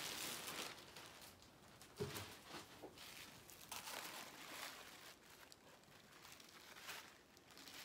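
Clear plastic wrapping crinkling and rustling in scattered bursts as it is pulled off and handled on a leather handbag, louder at first, with a short soft knock about two seconds in.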